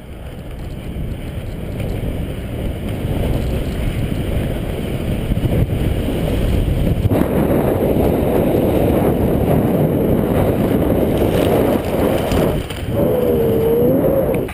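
Off-road inline skate wheels rolling fast down a dirt track: a steady rumble and rush that builds over the first several seconds as speed rises, then stays loud. It dips briefly near the end, where a short wavering tone also sounds.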